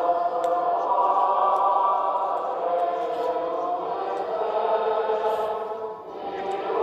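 A group of voices singing Orthodox church chant for a memorial service, with long held notes that dip briefly about six seconds in before the singing swells again.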